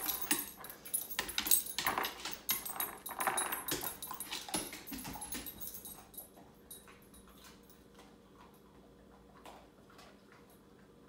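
A dog eating treats off a hardwood floor: crunching and the click of its nails on the boards for about six seconds, then it goes quiet apart from a few faint taps.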